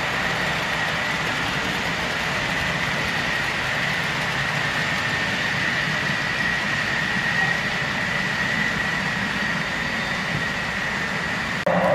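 Model freight train running on the layout: a steady rumble of wheels on track with a constant high whine. The sound jumps suddenly louder just before the end.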